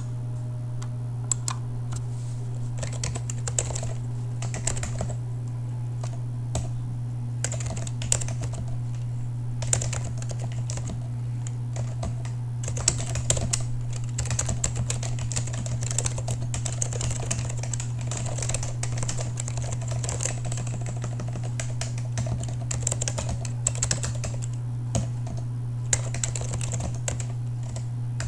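Continuous typing on a Keebio Iris Rev. 3 split keyboard with an FR4 sandwich case, waxboiled SKCM Ivory Alps switches and Apple Extended Keyboard II keycaps: a very even stream of key clacks, over a steady low hum.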